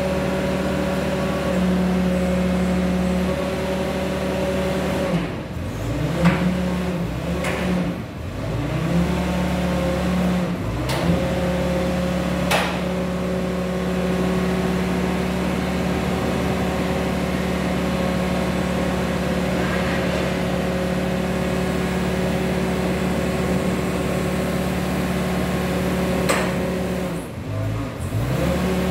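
Engine running steadily to drive the hydraulic crane arms of a container side-lifter trailer, its speed sagging and recovering a few times as the hydraulics take load. A few sharp knocks come through over it.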